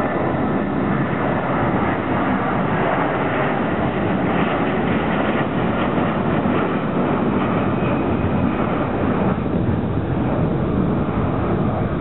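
Airbus A330-300 twin jet engines at takeoff thrust: a loud, steady jet noise as the airliner climbs away overhead.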